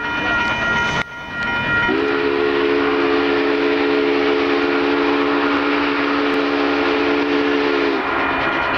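Union Pacific 844 steam locomotive's whistle blowing one long, low chord from about two seconds in until near the end, over a steady rushing noise. A higher steady tone sounds in the first second and cuts off abruptly.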